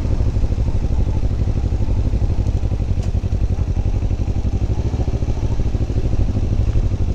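Motorcycle engine running steadily at an even pitch, its rapid firing pulses unbroken, with no change in revs.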